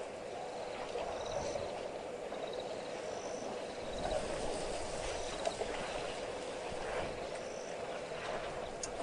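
Steady outdoor waterhole ambience: a constant low hiss with a few short, high chirps scattered through it. No distinct elephant call or splash stands out.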